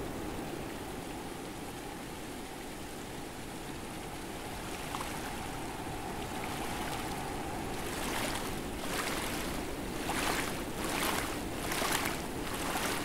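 Floodwater rushing and sloshing, with a series of splashes about one a second in the second half.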